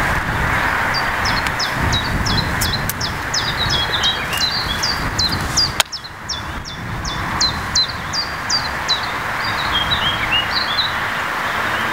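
Songbirds chirping: many short, quickly falling notes in rapid runs, over a steady background rush. A single sharp click about six seconds in.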